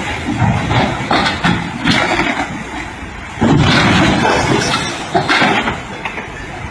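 Fast floodwater rushing, with repeated knocks and bangs as river passenger boats are swept against one another; the noise jumps louder about three and a half seconds in.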